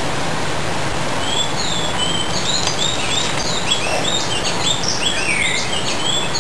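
Small birds chirping: many short, quick calls starting about two seconds in, over a steady background hiss.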